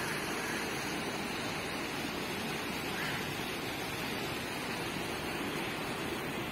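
Steady, even rushing outdoor background noise with no distinct events in it.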